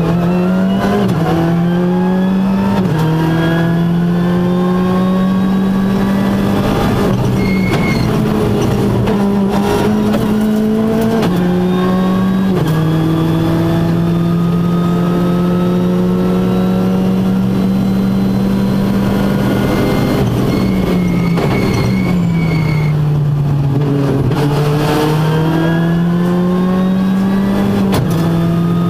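Ford Fiesta R5+ rally car's turbocharged 1.6-litre four-cylinder engine heard from inside the cabin, running hard at high revs. Its pitch steps at quick gear changes, and about two-thirds of the way through it falls away as the car slows for a bend, then climbs again under acceleration.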